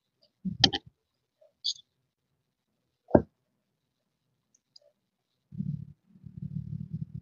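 A handheld lighter being flicked: a few sharp clicks in the first three seconds. From about five and a half seconds in, a low steady rumble sets in and continues.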